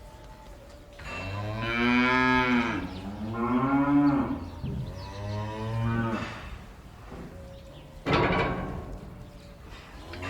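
Cattle mooing: three long, drawn-out moos one after another, then a harsher, rougher call about eight seconds in, over a low steady barn background.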